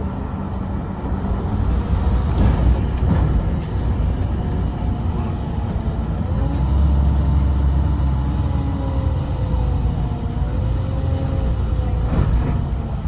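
City bus in motion, heard from inside the cabin: a steady low engine and road rumble that grows heavier about halfway through, with faint tones sliding in pitch above it.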